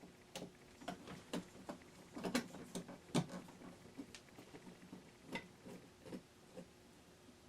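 Irregular light clicks and taps of hand work fitting a switch plate to a wall switch, with a faint steady hum underneath.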